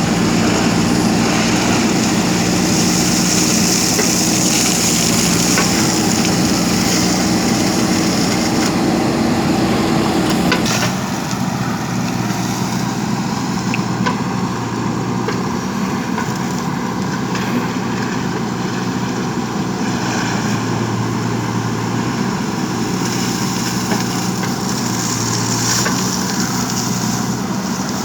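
JCB backhoe loader's diesel engine running steadily as the machine works. About eleven seconds in, the engine note changes and the sound drops suddenly to a slightly quieter level.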